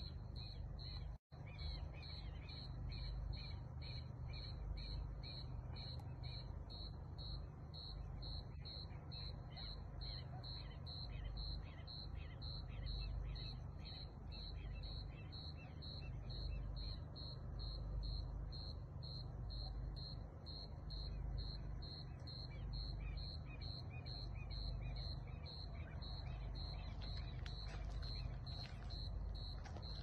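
A cricket chirping at night in a steady, even rhythm of high-pitched chirps, about two a second, over a constant low rumble. The sound drops out for an instant about a second in.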